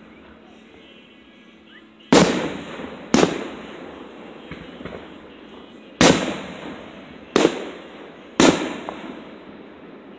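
Aerial firework shells bursting overhead: five loud booms, two about a second apart starting some two seconds in, then three more between about six and eight and a half seconds in, each trailing off in an echo.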